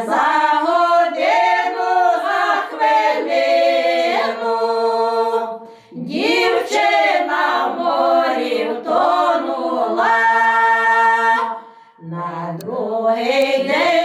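Four women singing a Ukrainian folk ballad a cappella in harmony, in long drawn-out phrases. The singing breaks off briefly for breath twice, about six and about twelve seconds in.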